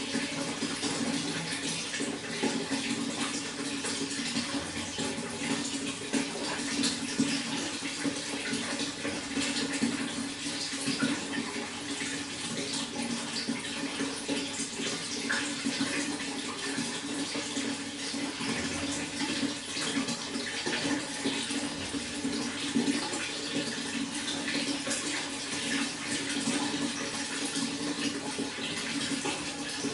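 Running water flowing steadily, a continuous splashing rush with no pauses.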